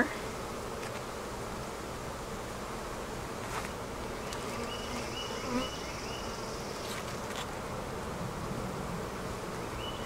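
Honeybees from an open hive buzzing steadily in a continuous hum, with a few faint clicks.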